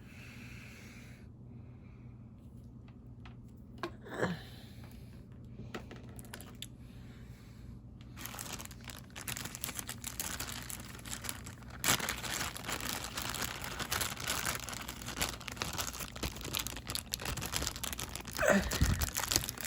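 Packaging being crinkled and torn while headphones are unboxed. It starts with a few light clicks and handling sounds, then turns into continuous crackling from about eight seconds in. Near the end there is a brief, louder sound that falls in pitch.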